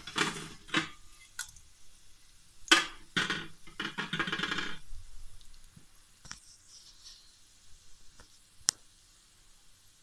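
Whole spices (mustard seeds, cumin, peppercorns, dried red chillies) crackling in hot oil in an aluminium pressure cooker as the tadka tempering starts. It comes as a burst of crackle in the first second and a longer one about three to five seconds in, then a few single pops.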